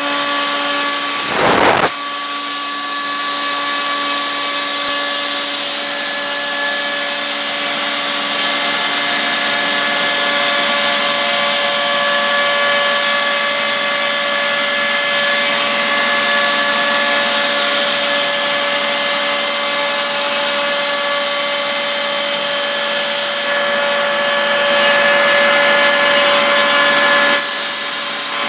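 CNC machine running and cutting: a steady whine of several held tones over a continuous noisy cutting hiss. There is a brief louder burst about a second in, and the high hiss eases for a few seconds near the end.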